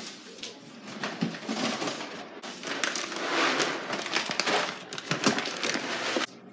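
A large plastic bag of dry puppy food crinkling as it is handled, then dry kibble pouring out of it into a plastic dog bowl. The sound cuts off suddenly near the end.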